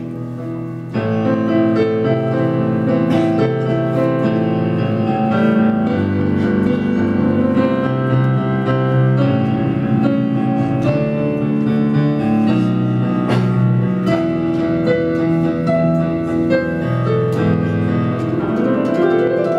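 Piano played solo: a slow instrumental interlude of sustained chords and melody, the playing getting fuller about a second in.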